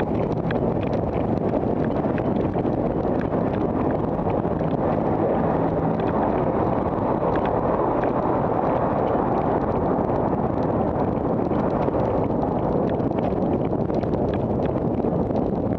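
Wind buffeting the microphone of a camera on a moving bicycle: a steady loud rush, with scattered light clicks and rattles from the ride.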